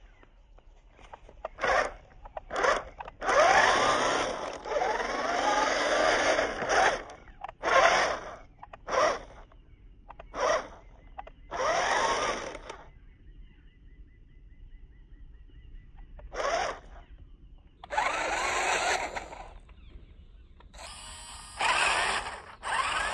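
Toy RC rock crawler's electric drive motor and gearbox whining in about ten bursts as the throttle is pressed and let off. The pitch rises and falls with wheel speed, and the longest run lasts about four seconds.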